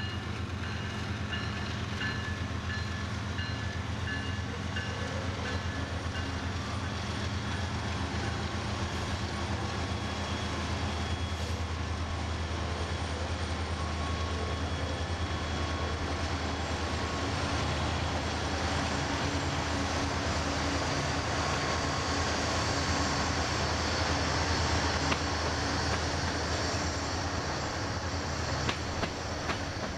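Union Pacific diesel-electric freight locomotives running past in a steady low drone, with a faint high whine early on. From about halfway the freight cars follow, adding a growing hiss of steel wheels on the rails and a few sharp clicks near the end.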